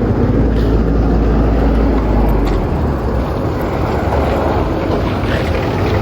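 Steady engine and road noise of a moving vehicle, a loud low rumble heard from on board.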